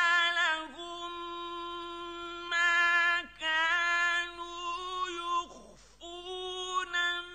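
A man's high voice in chanted, melodic Quran recitation, holding long notes with ornamented turns of pitch. There is a short breath about five and a half seconds in, then the chant goes on.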